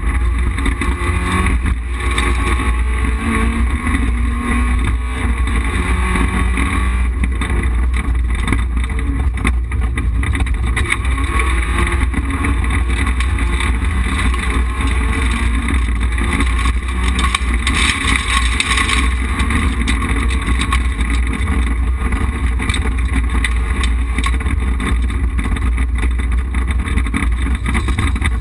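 Rally car's engine and road noise heard from inside the cabin at speed, with a heavy, steady low rumble. The engine note wavers up and down as the car is driven through the stage.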